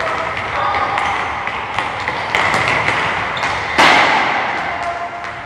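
Soccer balls being kicked and bouncing off a hard floor and walls, a series of thuds and taps with one loud hit near the four-second mark, with children's voices in the background.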